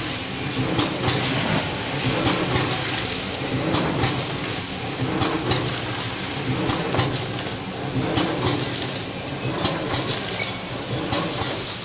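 Tea pillow-pack packaging machine running, its pneumatic sealing and cutting jaws clacking in pairs about every one and a half seconds over a steady mechanical clatter. Each pair is one bag being sealed and cut, at about 40 packs a minute.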